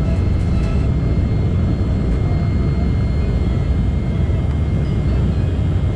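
Steady, loud rumble of an Embraer E190's CF34-10E turbofan engines at takeoff thrust, heard from inside the passenger cabin.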